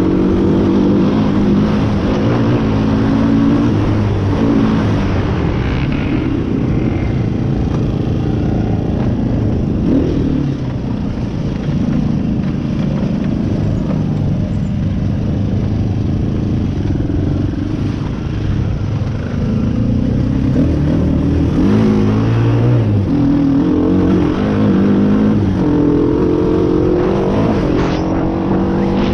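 Off-road vehicle engine running under throttle on a trail, its pitch rising and falling as it is revved and eased off. It runs lower and quieter through the middle, then revs up again in the last third.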